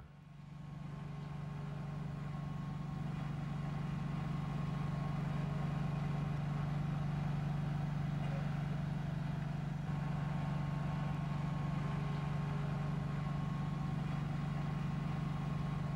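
Diesel-powered railway track maintenance machine running on ballast: a steady, even drone that fades in over the first couple of seconds.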